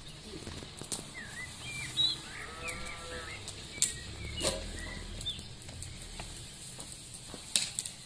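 A nightingale singing in short, varied whistled notes, joined about two seconds in by a drawn-out animal call. A few sharp clicks stand out as the loudest sounds.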